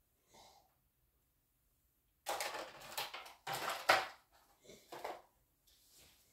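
Packaging rustling and knocking as a cardboard-and-plastic boxed lamp is picked up from a table, in a few short irregular bursts starting about two seconds in after near quiet.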